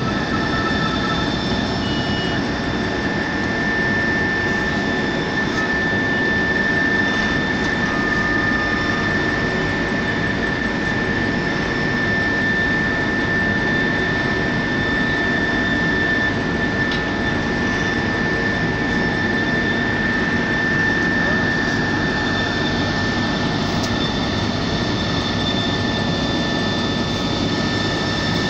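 Heavy road-paving machinery running steadily: a dense engine noise with a constant high whine over it.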